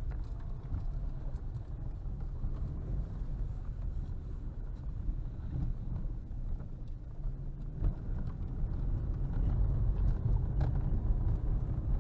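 Car being driven over a rough snowy dirt track, heard from inside the cabin: a steady low engine and road rumble, with occasional knocks from the bumpy ground. One knock about eight seconds in is louder than the rest, and the rumble grows a little louder near the end.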